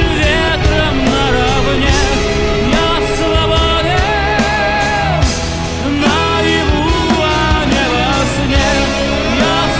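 Background music: a song with a singing voice over a rock band with a steady drum beat.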